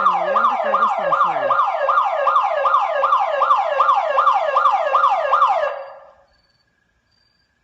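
Electronic security alarm siren of a daycare building, a fast falling whoop repeated about three times a second. It dies away about six seconds in. The alarm is going off on its own in the early hours.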